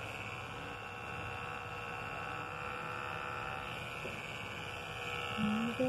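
A steady low electrical hum, with a short pitched sound near the end.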